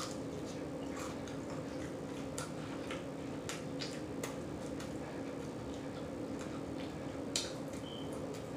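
Soft, scattered clicks of chewing and mouth smacking while eating a mozzarella stick, the loudest about seven seconds in, over a steady low hum.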